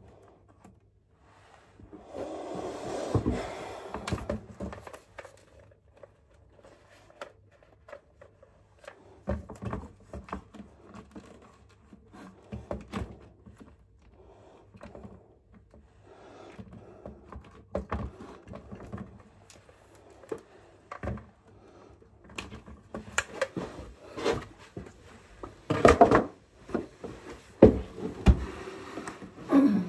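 Irregular knocks, thuds and scrapes of hands-on work at close range, with the loudest cluster of knocks near the end as a wooden picture frame is handled against the wall.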